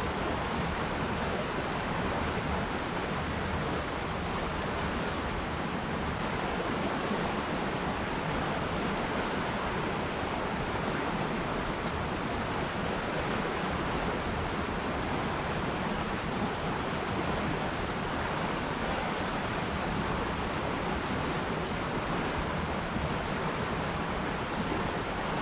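River water rushing steadily, an even, unbroken wash of flowing water.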